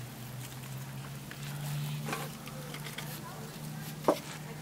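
A spoon taps once against a salsa jar about four seconds in, a short sharp click, with a softer tap about two seconds in, over faint background talk and a low steady hum.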